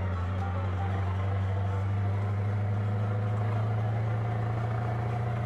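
Scania 144 460's 14-litre V8 diesel engine running under way with a steady low note, heard from inside the truck's cab.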